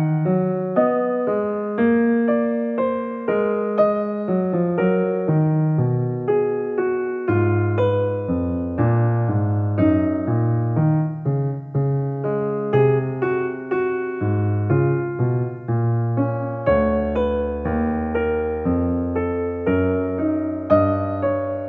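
Background piano music: a slow melody of struck, decaying notes over low bass notes.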